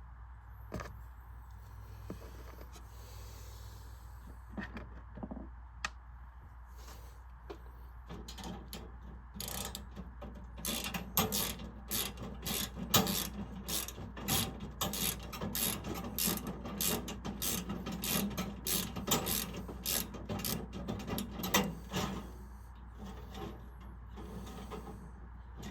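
Ratchet wrench with a 9 mm socket clicking as a fastener on the fan motor is turned: a few scattered knocks at first, then a long run of quick ratcheting clicks that stops a few seconds before the end.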